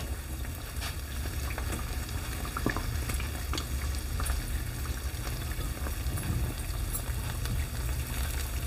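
Urad dal patties deep-frying in hot oil in a steel pan: a steady sizzle, with a few faint clicks.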